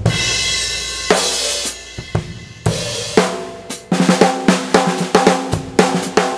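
Drum kit played as a fill through a single condenser microphone with reverb added. A cymbal crash rings out at the start and is followed by a few accented strokes. From about four seconds in comes a fast run of snare and tom strokes with the toms ringing.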